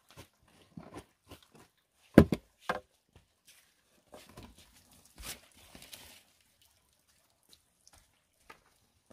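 A shovel tipping loads of damp soil into a metal wheelbarrow: the blade knocks and scrapes on the pan and the earth thuds in. There are separate knocks, the loudest a little over two seconds in, and a longer scraping rustle around five to six seconds in.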